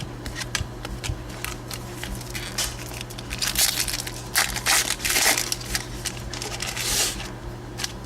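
Light scattered clicks, then from about three and a half seconds in a trading-card pack's wrapper crinkling and being crumpled loudly for about four seconds.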